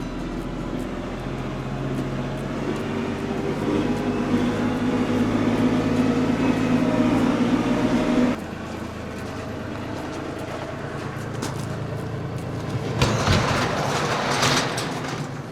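Kubota compact tractor's diesel engine running as the tractor drives along. The engine note is steady and grows louder, then changes abruptly about eight seconds in. A louder rush of noise comes near the end.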